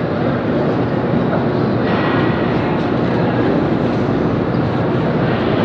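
Steady din of a large, crowded exhibition hall: many people murmuring at once, blended with the hall's background hum, with no single voice or event standing out.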